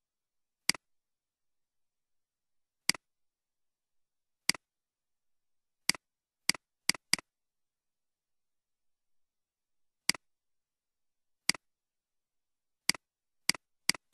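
Computer mouse clicks: about a dozen short, sharp clicks at uneven intervals, a quick run of three or four just after the middle and several more near the end, with dead silence between them.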